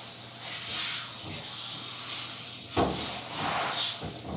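Water hissing from a hose sprayer into a dog-grooming tub, rinsing off soap, with a dull thump a little under three seconds in.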